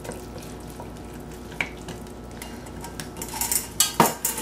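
Metal spoon stirring cornmeal dumpling batter in a glass mixing bowl: soft scraping at first, turning to a quick run of clinks and scrapes about three seconds in, with two sharp ringing clinks of metal on glass near the end.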